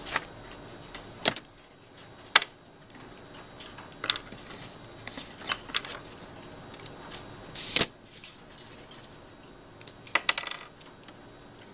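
Clear plastic drawing templates being handled and set down on paper: a series of sharp plastic clicks and clacks a second or two apart, the loudest about a second and two seconds in and near eight seconds.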